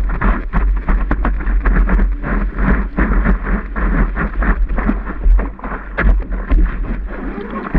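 Water splashing and slapping against the nose of a surfboard and a camera mounted on it while the board rides a wave: a rapid, irregular patter of spray hits over a rushing wash, with wind noise on the microphone.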